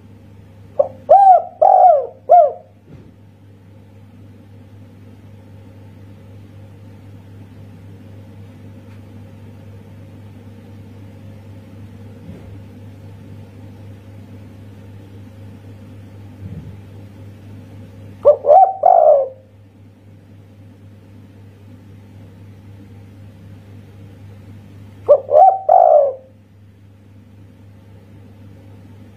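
Spotted dove cooing in the 'kuk satu' song style: a quick phrase of three or four loud coos about a second in, then a shorter coo phrase after a long pause and another several seconds later, over a steady low hum.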